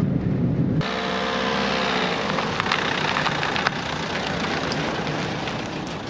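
Van running with road noise inside the cab for a moment, then, after a cut, a vehicle engine outdoors whose pitch rises and falls briefly about a second in, over a steady rushing noise with a few clicks.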